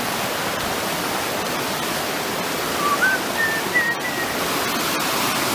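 Fast-flowing stream rushing over rocks, a loud, steady hiss of water. A few short high whistled notes stand out near the middle.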